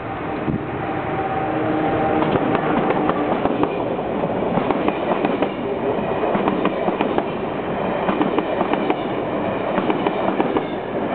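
Amtrak passenger train of Amfleet I coaches rolling past at speed: a steady rumble of wheels on rail with a stream of sharp clicks as the wheels cross rail joints.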